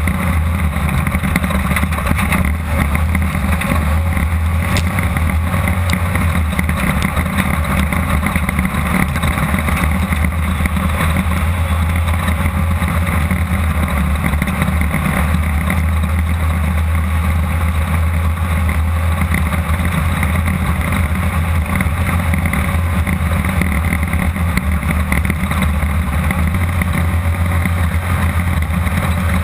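Air-cooled VW 1600 engine of a Class 2-1600 off-road race buggy running hard at a steady pitch, heard from inside the car with constant drone and rattle.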